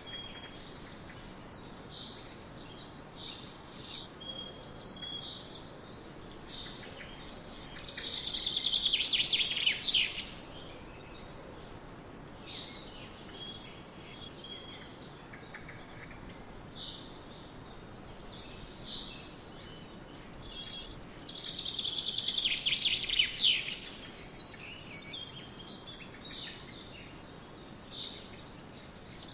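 Songbirds chirping and whistling over a faint steady hiss, with a louder rapid trilling song about eight seconds in and again about twenty-two seconds in.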